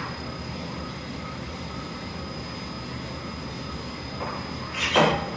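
Drum coffee roaster running mid-roast: a steady rumble and rush from the turning drum, burner and exhaust fan. About five seconds in, a short loud scrape-and-knock as the sample trier is worked at the roaster's front.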